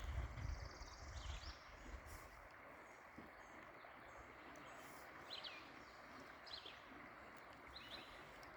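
A river's water running steadily, with several short high bird chirps spread through it and a brief buzzy trill at the start. A low rumble sounds in the first second and a half.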